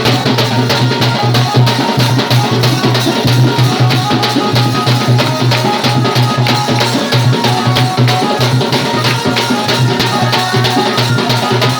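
Saura dance music: dense, fast drumming with rattling percussion, loud and continuous.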